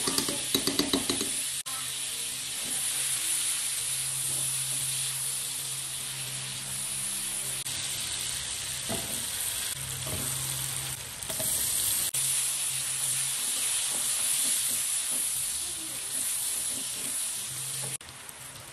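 Garlic and then onion sizzling as they fry in hot melted margarine in a stone-coated wok, with a spatula stirring. There is a burst of crackling at the start as the garlic goes in, and a few louder strokes around ten seconds as the onion pieces drop in. A steady low hum runs underneath.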